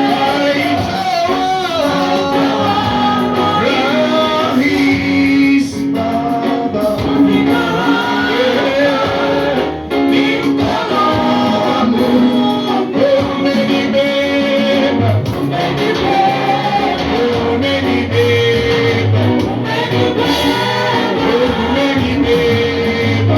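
Live church worship music: voices singing a praise song over steady instrumental accompaniment.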